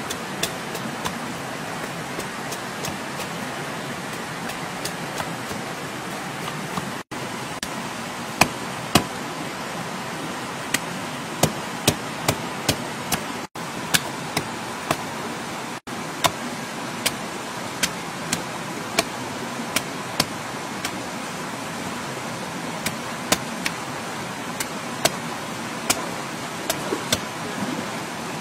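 Large knife blade cutting and peeling a taro corm: sharp clicks and knocks at irregular intervals as the blade strikes and slices the firm flesh, over a steady rushing hiss.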